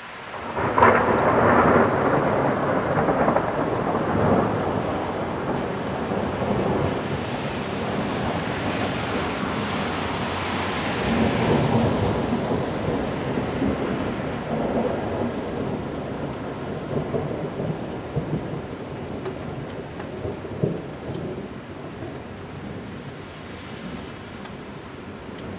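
Thunder: a sudden loud crack about a second in, then a long rolling rumble that swells again midway and slowly dies away, with one more short crackle near the end.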